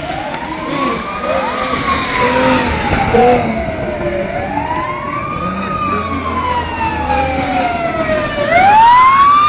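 A siren wailing, its pitch rising quickly and falling slowly about every four seconds, over a rally car's engine revving.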